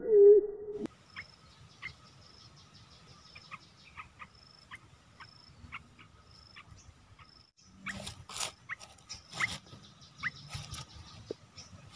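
Red-eyed bulbuls give short, sharp chirps every half second to a second. About eight seconds in comes a burst of rustling and wing flapping as the trapped bird struggles in the bamboo trap cage and is grabbed by hand.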